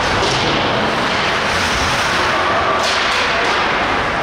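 Live ice hockey play: skates scraping on the ice and sticks and puck clacking over a steady din of the rink. A couple of sharp hits come in the second half.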